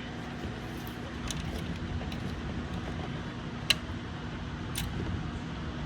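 Distant thunder rumbling low and steadily, swelling slightly near the end, with a few short sharp clicks.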